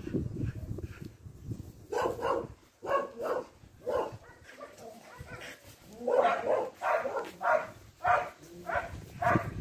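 Dog barking in short repeated barks: a handful about two to four seconds in, then a quicker run of about six from about six seconds in to the end.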